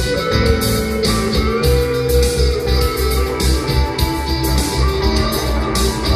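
Electric guitar played through a Positive Grid Spark 40 amp, picking held single-note lines over a backing track with a steady drum beat and bass.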